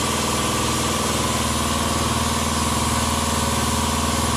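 A motor-driven pump running steadily: an even hum with a hiss over it, while its hose sucks the gear oil out of the Ford 8.8 differential housing.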